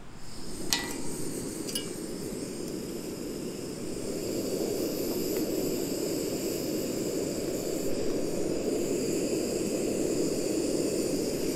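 Olicamp Xcelerator titanium gas stove burning on a screw-on fuel canister: the steady hiss of the burner under a pot of water, growing louder about four seconds in. Two sharp clicks near the start.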